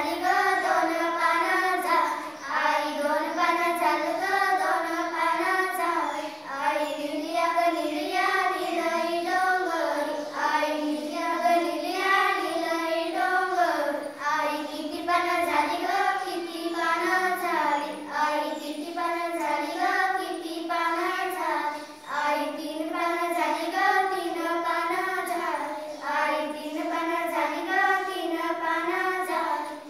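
A group of young girls singing a Marathi folk song together in unison, the melody rising and falling in short repeated phrases.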